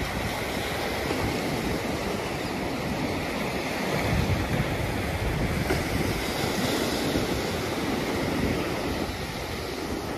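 Small surf breaking and washing up a sandy beach, a little louder near the middle, with wind buffeting the microphone.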